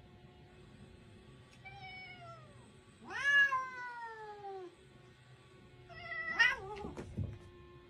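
Domestic cats yowling in a face-off, the drawn-out warning calls of a cat standoff: a faint falling yowl, then a loud, long falling yowl about three seconds in, and a louder wavering yowl about six seconds in that breaks up at its end.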